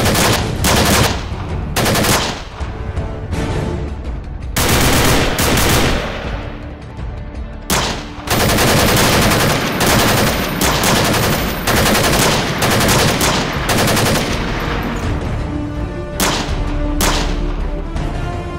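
Automatic rifle gunfire in rapid bursts, with short pauses between volleys and one long sustained stretch of fire in the middle.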